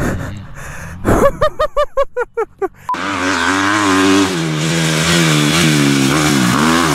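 Dirt bike engine revving hard, its pitch rising and falling as it is throttled through a sliding turn; this starts suddenly about three seconds in. Before that, a rapid run of about seven short pitched sounds.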